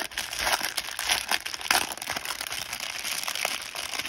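Small clear plastic zip bags of diamond-painting drills crinkling and rustling in irregular bursts as they are handled.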